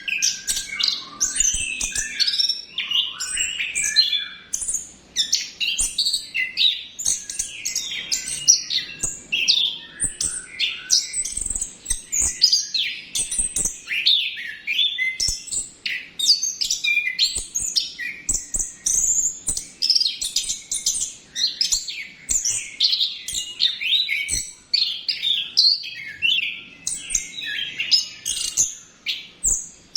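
Orange-headed thrush (anis kembang) singing a continuous rolling song: a dense, unbroken stream of quick, varied, high chirping phrases with hardly a pause.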